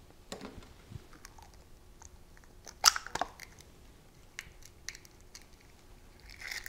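Eggshell cracking and crunching as a raw egg is broken open and pulled apart by hand, a series of small sharp clicks with the loudest crack about three seconds in.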